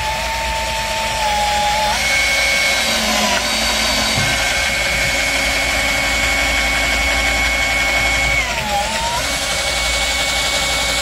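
Power drill driving a screw into hard wood, its motor whining continuously. The pitch rises about two seconds in and dips briefly near the end as the screw resists, because the wood is too hard for the screw to sink.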